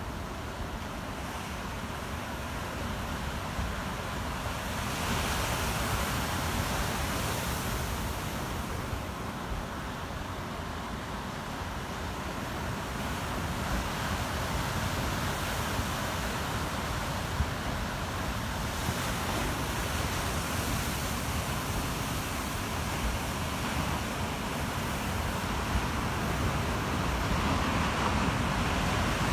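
Ocean surf: waves breaking and washing in as a continuous rush that swells and eases in slow surges every several seconds.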